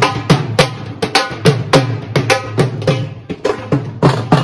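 Dhol drum played live in a fast, driving rhythm: deep bass-head strokes that drop in pitch after each hit, mixed with sharp higher slaps.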